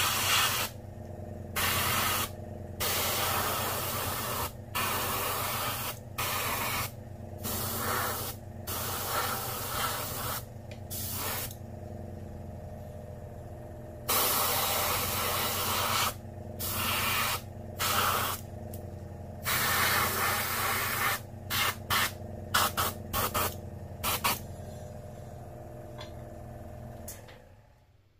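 Airbrush spraying paint onto a small crankbait lure in on-off bursts of varying length, with short, quick bursts toward the end, over a steady low hum. The sound stops shortly before the end.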